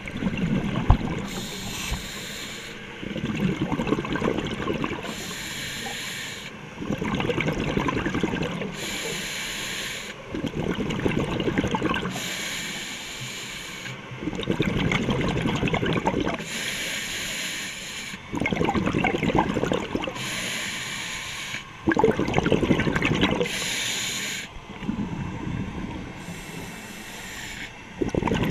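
Scuba diver breathing through an open-circuit regulator underwater: a hiss on each inhalation, then a louder burst of exhaust bubbles on each exhalation, in a regular cycle about every three to four seconds.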